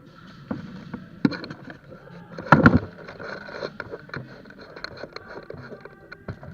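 Irregular scuffs, rustles and clicks of close-up movement, with a louder cluster of sharp knocks about two and a half seconds in.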